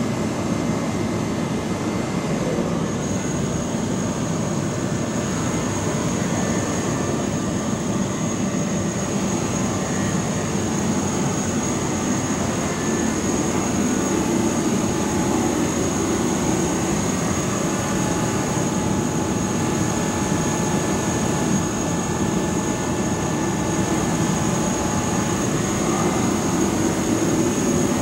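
Steady machinery noise, even and unbroken, with a faint steady high-pitched whine over it.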